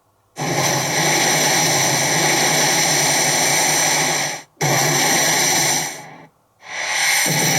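Pachinko machine's electronic sound effect: a loud, steady hiss-like noise with a low hum underneath, cut off to silence briefly twice, about four and a half seconds in and again near the end.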